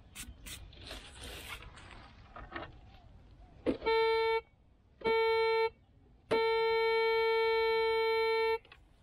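Metal detector sounding three steady mid-pitched beeps, two short and then one long of about two seconds, as its search coil is held over a dug hole: the target tone for metal still in the ground. Light rustling and knocks from the coil before the beeps.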